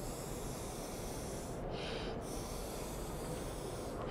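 Steady hiss of breath blown through a Sprayza blow-pen airbrush, its mouth-blown air jet spraying marker ink through a stencil. It breaks once, about two seconds in, for a quick breath in.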